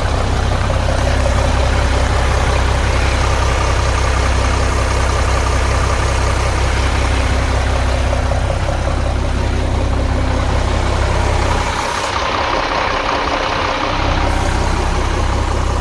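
International DT466 diesel engine idling steadily in a 1982 International S1900 dump truck, with a low, even rumble. The rumble drops off for about two seconds around twelve seconds in, then resumes.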